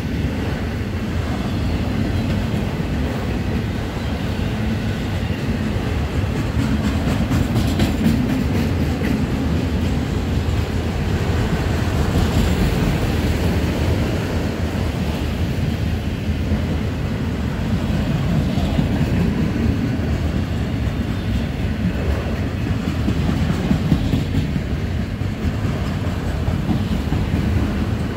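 Freight train of auto-rack cars passing at speed close by: a steady, loud rumble of steel wheels on the rails.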